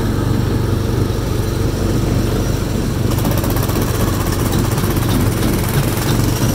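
The small gasoline engine of a go-kart-style amusement-park ride car running steadily under way, with a low, even hum. About three seconds in, a fast rattle joins it.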